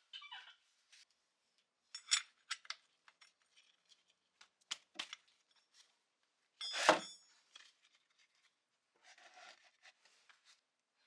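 Metal tools and parts clinking and being handled during oil-change work, with one louder ringing metallic clank about seven seconds in and a softer rustling or scraping near the end.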